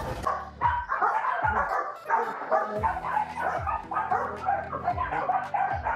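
Dogs barking and yipping over background music with a deep, falling bass beat about once a second.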